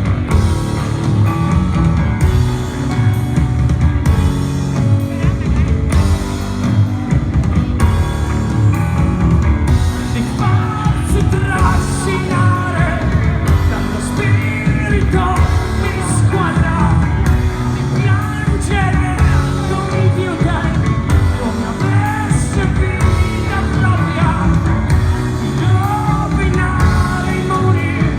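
Live rock band playing loud, with drums and distorted guitars; a voice sings over it from about ten seconds in.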